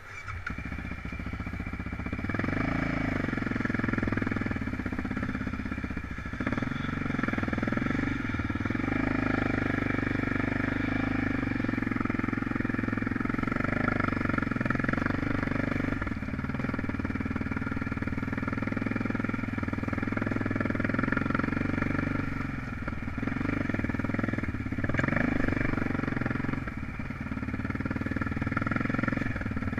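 Off-road vehicle engine running steadily during a hill climb, its level dipping briefly a few times.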